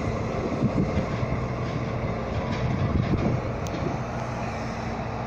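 Engines of road-rail track-maintenance vehicles running steadily at a distance, a low, even hum.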